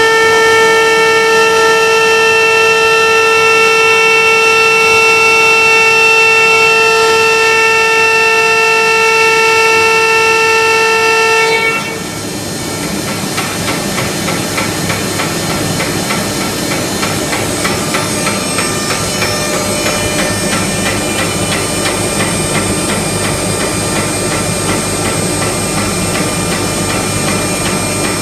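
A pumping system labelled HSS making a problem noise that its owner suspects is cavitation. It gives a loud steady whine for about twelve seconds, which cuts off suddenly and changes to a rough, crackling rattle.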